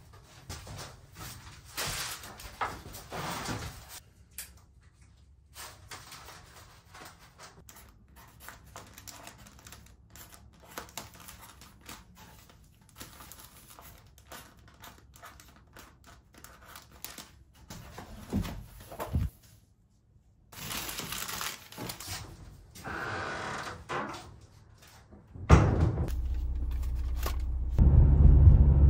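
Paper handling at a wooden bench: pages and brown paper bags rustling, a marker writing on the bags, and soft knocks. Near the end a steady low car rumble takes over as the car drives.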